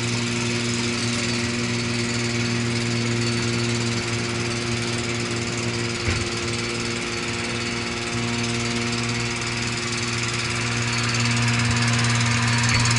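Engine of the work machine carrying the crane arm and grab, running steadily at constant speed with a deep even hum. There is one sharp knock about six seconds in, and the engine gets a little louder near the end.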